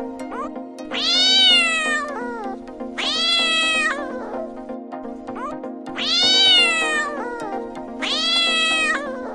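A cat meowing four times: long, drawn-out meows of about a second each that rise and then fall in pitch, coming in two pairs. A steady low hum runs underneath.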